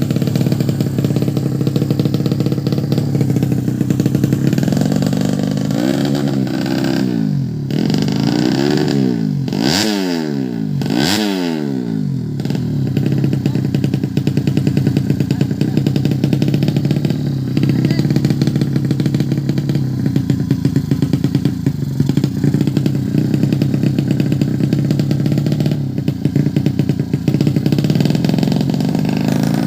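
Tuned 130cc drag-racing motorcycle engine running at a fast idle, revved up and down in about four quick blips around the middle, then settling back to a steady idle.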